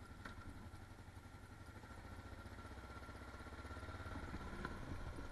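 Kawasaki KLR 650's single-cylinder four-stroke engine running at low revs on a slow off-road ride, a steady low chugging that grows a little louder toward the end.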